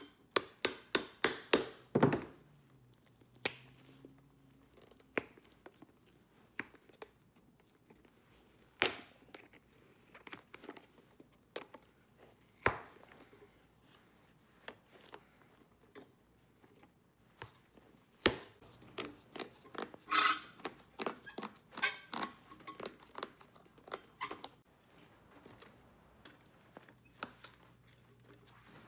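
Steel hand tools knocking, tapping and prying at a cowboy boot's nailed heel and sole. A quick run of sharp taps, about four a second, fills the first two seconds. After that come scattered single knocks, with a busier patch of knocks and clicks about two thirds of the way through.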